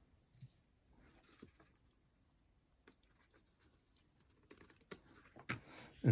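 Faint, scattered small clicks and soft rustles from handling small plastic parts and tools at close range, growing busier near the end.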